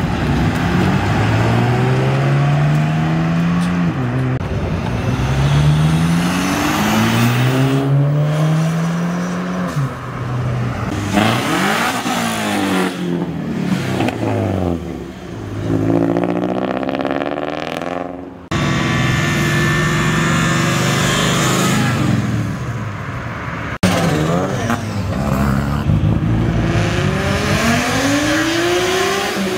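Several sports cars accelerating hard past one after another, each engine revving up through the gears with a rising pitch that drops at every upshift.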